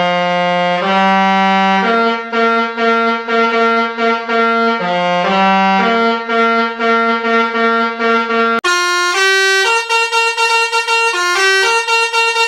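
A musical vehicle horn playing a tune: buzzy held notes stepping up and down in pitch. About two-thirds of the way through, it cuts abruptly to a brighter, higher horn playing another run of notes.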